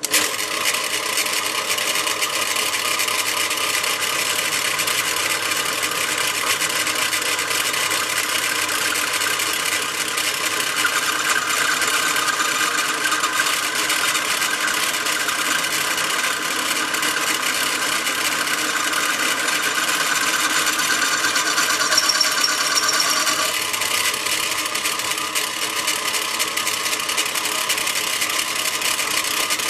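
Electric drill press running steadily, a machine whine made of several fixed tones. A higher note strengthens about a third of the way through and drops away about 23 seconds in.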